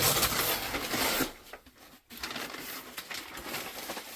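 Plastic vapor barrier sheeting rustling and crinkling as it is handled and pushed into place against the wall, broken off briefly about halfway through.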